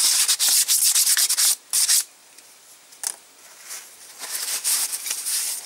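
A Panhard engine piston being hand-sanded with 600-grit abrasive paper to take off surface imperfections: quick scratchy rubbing strokes, loud for about two seconds, then lighter, scattered strokes.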